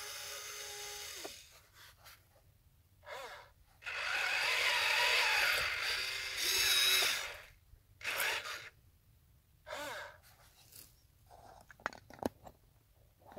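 Huina 1583 RC wheel loader's small electric motors and gearboxes whirring in stop-start bursts. One steady whine cuts off about a second in, and a longer run of about three seconds comes in the middle. Short whirs rise and fall in pitch, and a few clicks come near the end.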